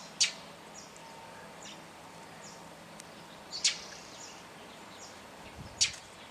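Northern mockingbird fledgling giving short, sharp, high begging calls for food: three loud calls spaced a few seconds apart, with fainter calls between them.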